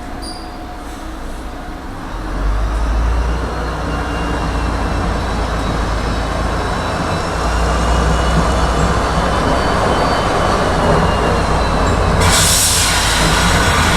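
Tram pulling away and gaining speed: its traction motors give a faint rising whine over the rumble of steel wheels on the rails. The rumble grows louder about two seconds in, and a short hiss comes near the end.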